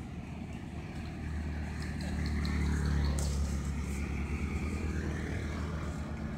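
A motor vehicle passing close on the street, its low engine and tyre rumble building to a peak about three seconds in and then fading.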